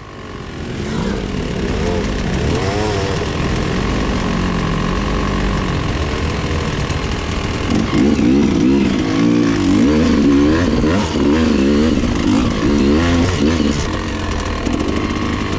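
Dirt bike engine heard from on the bike as it rides a narrow trail, its revs rising and falling with the throttle. The revving gets busier and a little louder about halfway through.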